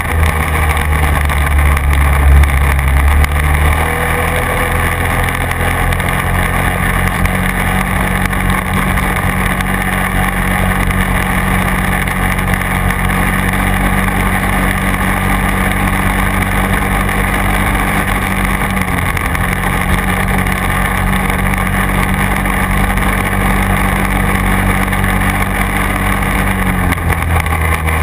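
Quad (ATV) engine running steadily while driving along a field track. Its note changes about four seconds in and changes back near the end.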